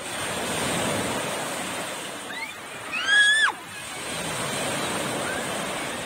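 Small waves breaking and washing up the shore in swells. About three seconds in, a child's short, high-pitched squeal rises and drops away, louder than the surf.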